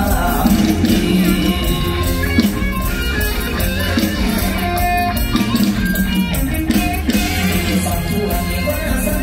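Live Isan-style stage band music played loud through the PA, with guitar prominent over a steady beat.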